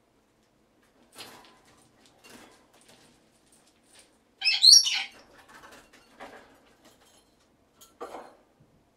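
Lorikeet bathing in a water dish: several short bursts of splashing and wing fluttering. About halfway through comes a brief, high, gliding squawk, the loudest sound.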